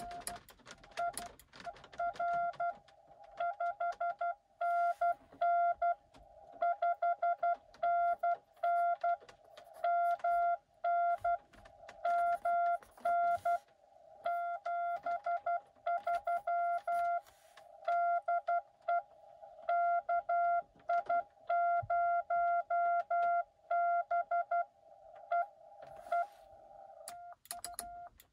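Morse code (CW) from a Xiegu X6100 ham transceiver: a single steady beep keyed on and off in quick dits and dahs, in groups with short pauses between them. Faint clicks come along with the beeps.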